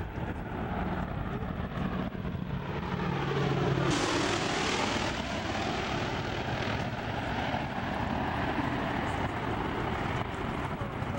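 Canadair CL-215 water bomber's twin piston engines and propellers droning as it approaches low. About four seconds in it passes overhead: the sound suddenly grows louder and fuller, with the pitch falling, and it stays loud as the aircraft flies off low over the lake.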